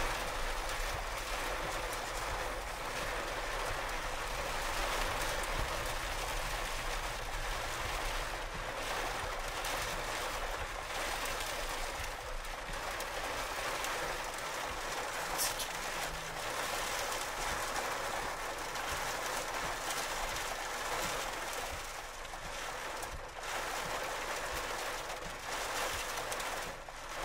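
Strong thunderstorm wind blowing in a steady rushing noise near a tornado, with a low rumble of gusts underneath that eases about halfway through.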